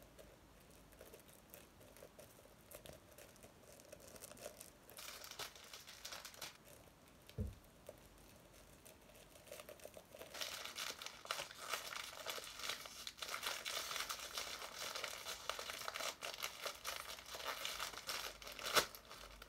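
Packaging crinkled and torn open by hand: faint scattered rustling and a dull knock in the first half, then steady crinkling and tearing from about ten seconds in, with a sharp snap near the end.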